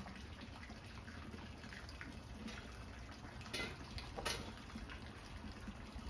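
Water running and trickling faintly, with two brief louder splashes a little past halfway, as a wasp nest is drowned.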